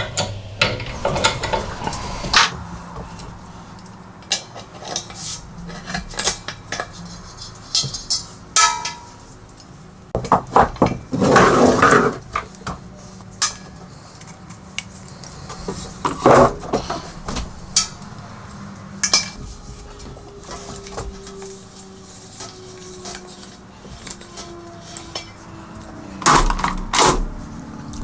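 Metal clinks and clanks of bolts, nuts and tools being handled while metal parts are bolted together. The knocks come irregularly, with a longer clattering stretch about eleven seconds in.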